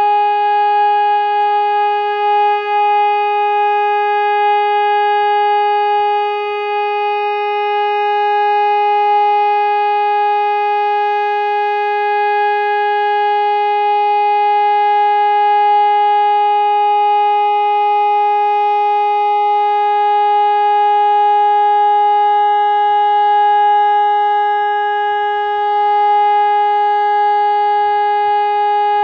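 PSE Electronics EPS 500 single-tone electronic siren sounding the 'Test' signal: one steady, unbroken tone at a fixed pitch with strong overtones, part of the two-minute continuous tone used for the monthly siren test.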